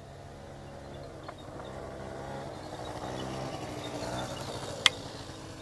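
Motor scooter engine running steadily at a distance, growing louder and then fading. One sharp click about five seconds in.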